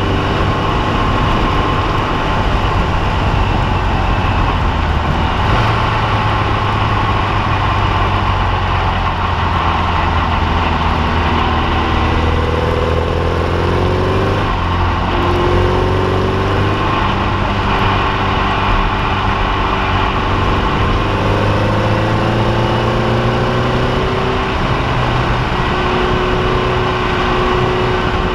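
Formula Vee race car's air-cooled Volkswagen flat-four engine running hard at racing revs, heard onboard over wind and tyre noise. The engine note falls and rises again several times in the middle as the driver lifts and changes gear for a corner, then settles to a steady pull.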